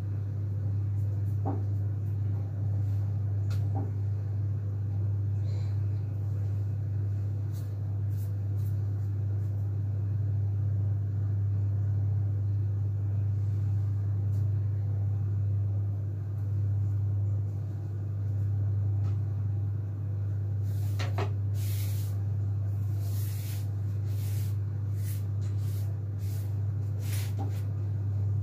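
A steady low electrical hum, with scattered light clicks and scrapes of a fondant tool being handled on a cake, most of them in the last several seconds.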